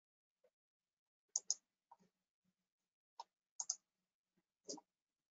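About half a dozen short, sharp clicks at a computer, some in quick pairs, spread over a few seconds with near silence between them.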